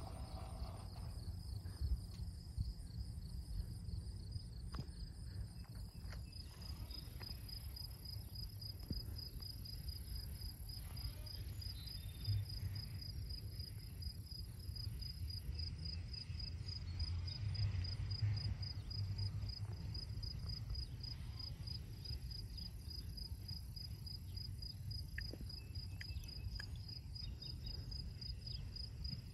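Insects chirping in the grass: a steady, evenly spaced high-pitched chirp that keeps up without a break, over a faint low rumble.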